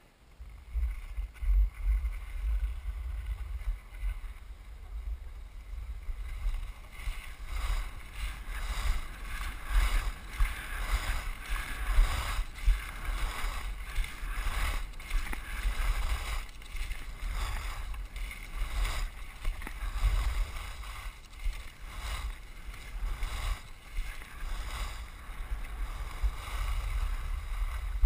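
Wind buffeting the microphone of a moving action camera, a heavy low rumble, with the hiss and scrape of edges on packed snow during a downhill ski-run descent. It starts suddenly about half a second in and surges unevenly with the turns.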